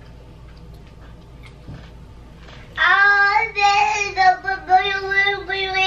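A toddler's high-pitched voice in a drawn-out vocalizing, held near one pitch with small wobbles for about three seconds, starting about three seconds in after a quiet start.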